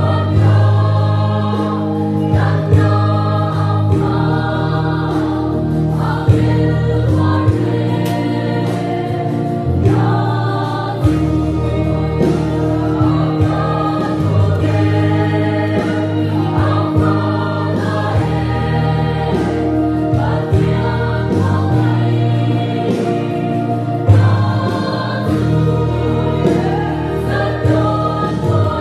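Mixed choir of women and men singing a gospel hymn in Mizo, with sustained low notes under the voices.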